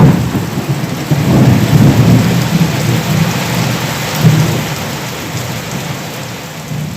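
Thunder rolling through heavy rain, loudest at the start, swelling again about four seconds in, then dying away under the steady hiss of the rain.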